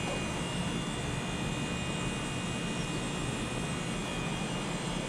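Heat pump outdoor unit running steadily in defrost mode, its compressor droning with a thin steady high tone on top, while it gives off steam.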